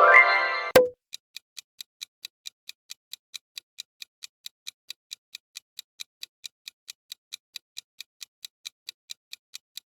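Quiz countdown-timer sound effect: clock-like ticking, about four even ticks a second, giving time to guess. It opens with a short pitched jingle that ends in a sharp click.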